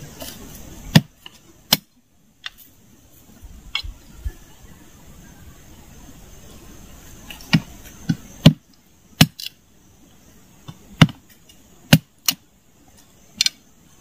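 A large knife striking wood: about a dozen sharp, irregular chops, several in quick pairs.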